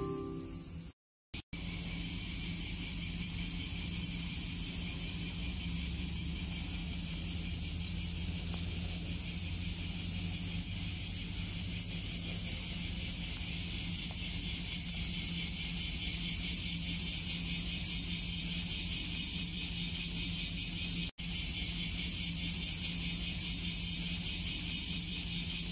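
Cicadas buzzing steadily, a high-pitched drone over a faint low hum. About halfway through, the buzz starts to pulse about four times a second.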